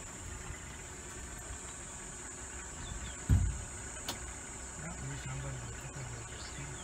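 Steady high-pitched insect buzz over a low rumble, with one dull thump about three seconds in.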